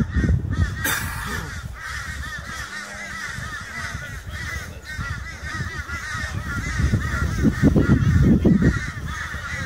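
A chorus of birds calling continuously, many quick rising-and-falling chattering notes overlapping, over a low rumble that swells near the end.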